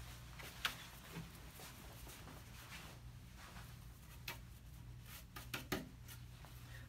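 Faint scratching strokes of a slicker brush through a short-clipped Shih Tzu's coat, with a few light clicks and taps, mostly in the second half, over a steady low hum.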